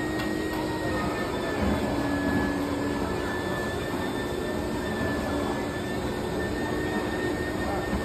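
Plush-toy stuffing machine's blower running steadily, a rushing noise with a thin high whine, as it blows fibre fill into a stuffed animal held on its nozzle.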